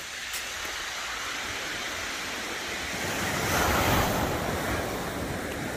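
Sea waves washing on a shingle beach, one wave surging in louder about three and a half seconds in, with wind on the microphone.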